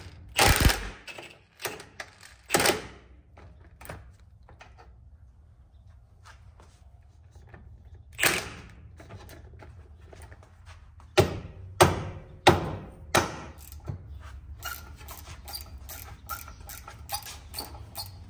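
Metal socket tools working the driveshaft-to-pinion-flange bolts: sharp metallic knocks and clicks, a loud pair at the start, single ones at about 3 and 8 seconds, then four in quick succession about two-thirds of a second apart, followed by lighter rapid ticking.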